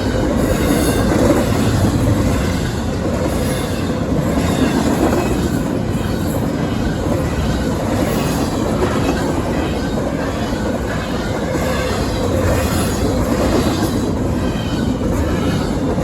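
Norfolk Southern freight train rolling steadily past, its wheels clacking over the rail joints with some wheel squeal.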